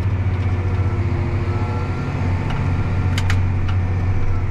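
Farm tractor's diesel engine running steadily, with two short sharp clicks a little past three seconds in.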